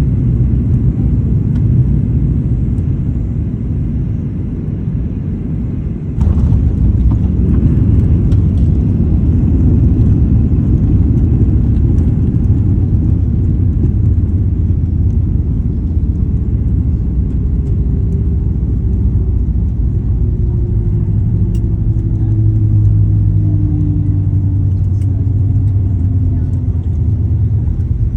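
Cabin rumble of a Boeing 737-800 landing, heard from a window seat. About six seconds in, a sudden jolt and jump in loudness as the wheels touch down, then a louder rumble as the jet rolls out along the runway. In the last third a whine falls slowly in pitch as the aircraft slows.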